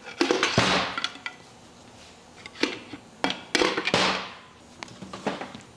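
Hammer handle knocking against a piston and connecting rod to drive it up and out of a cylinder of a Willys F-head 134 engine block. The sharp knocks are irregular, with a quick run near the start and single strikes every half second to a second after.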